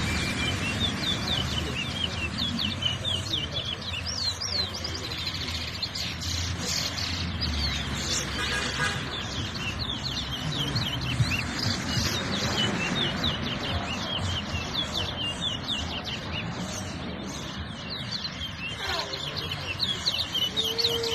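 Towa-towa finches (chestnut-bellied seed finches) singing: quick runs of sharp high chirps and trills that repeat through the whole stretch, one phrase after another.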